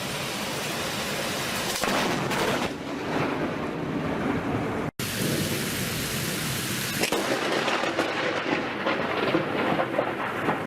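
Heavy rain with rolling thunder during a thunderstorm. The sound drops out for an instant about five seconds in, then rain and thunder go on.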